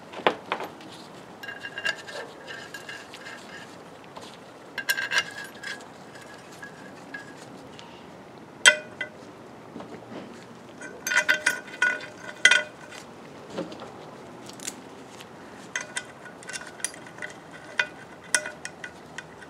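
Scattered metal clinks and clicks, several with a short ringing tone, as metal oil-slinger paddles and their bolts are set onto a Ford Model T flywheel and bolted down.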